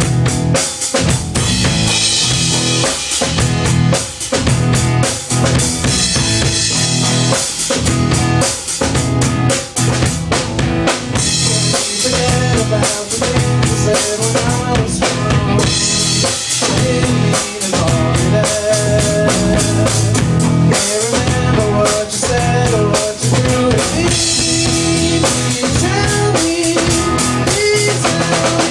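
Rock band playing a song: a drum kit with bass drum and snare keeps a steady beat under a melody line.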